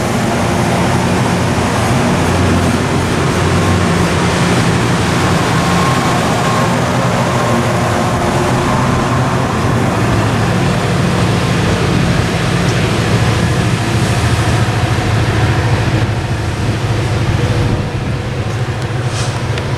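MARC commuter train's stainless-steel passenger coaches rolling past on the rails, a steady loud rumble of wheels and cars that eases a little near the end as the train moves away.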